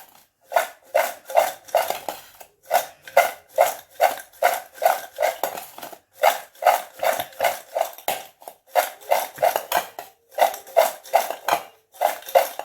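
A spoon knocking and scraping against a bowl in a steady rhythm of about three strokes a second, with a few short pauses, as fried taro pieces are tossed with chilli powder and salt.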